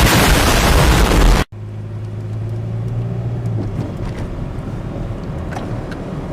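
A loud rushing noise for about a second and a half that cuts off sharply, then the sound of a Daihatsu Move Custom RS (LA100S) driving: a steady low hum for about two seconds, then a few faint knocks. The knocks may be the clunking (gotogoto) noise the owner is trying to trace, which the tags point toward the engine mounts, front suspension or brake caliper slide pins.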